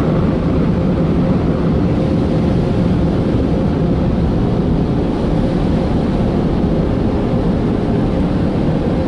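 Belanger Saber SL1 car wash air-blower dryers running steadily, heard from inside the car's cabin as a loud, even rush of air with a low hum.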